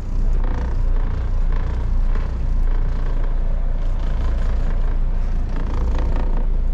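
Trawler's twin inboard engines running in gear at low throttle as the boat pulls away from the dock: a steady low rumble.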